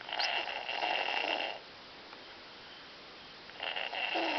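A small child snoring: two snores, one about a second and a half long at the start and another beginning near the end.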